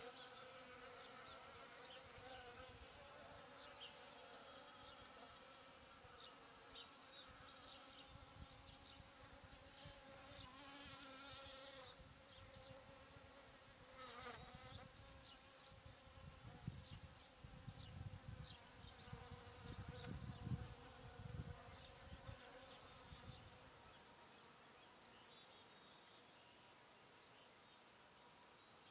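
Faint, steady buzzing of honeybees flying around a pollen-substitute feeder. Some low rumbling comes in midway, the loudest part.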